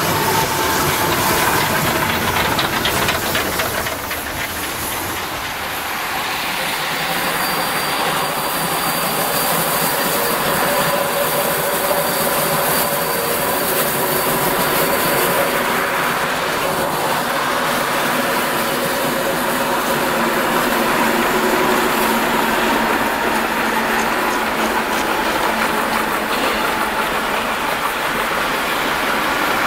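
Steam-hauled passenger train on the move: the coaches' wheels clatter over the rail joints and squeal as the train passes, with the hiss of steam.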